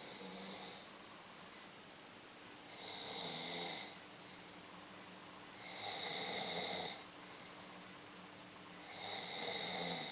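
A man snoring: four hissing snores, each about a second long, coming regularly about three seconds apart.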